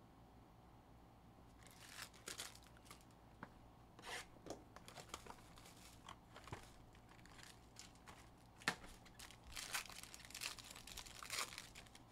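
Faint crinkling and tearing of plastic and foil packaging as a trading-card box is opened and its foil pack handled, with scattered small clicks. It starts about two seconds in, and a sharp tap comes near nine seconds.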